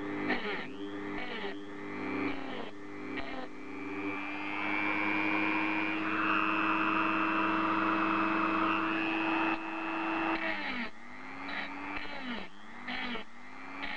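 Dremel rotary tool with a cut-off disc cutting into a laser pointer's casing. The motor's whine sags and recovers over and over as the disc bites. From about four seconds in to about nine and a half, it gives way to a loud steady grinding screech of continuous cutting, then the sagging returns.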